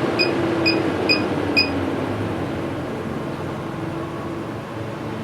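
MaxxFan Deluxe 7500K roof vent fan running, with four short high beeps about half a second apart as its speed is stepped down. Its whir and hum then drop in pitch and get quieter as the fan slows.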